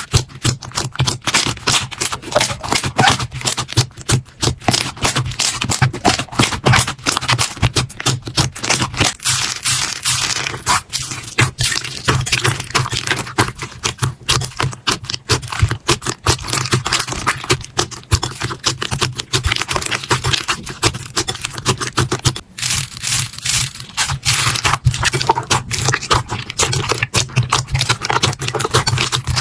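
Slime being squeezed and poked by hand, a dense, continuous run of sticky clicks, pops and crackles.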